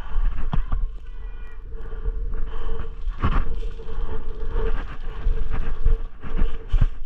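Wind buffeting the microphone in a constant low rumble, with scattered clicks and knocks and a faint steady hum.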